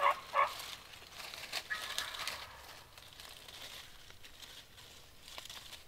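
The last two notes of a series of turkey calls ring out in the first half second. Dry leaves then rustle and crackle for a couple of seconds, fading to a faint hush.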